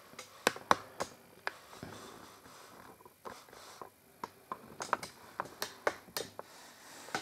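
A string of sharp, irregularly spaced clicks and taps, about twenty of them, in a small room.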